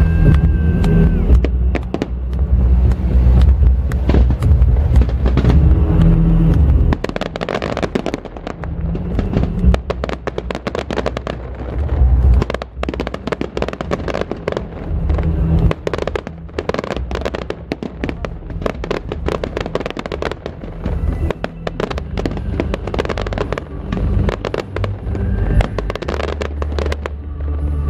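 Aerial fireworks bursting with dense rapid crackling and popping from crackle stars. A heavy low rumble is strongest through the first seven seconds.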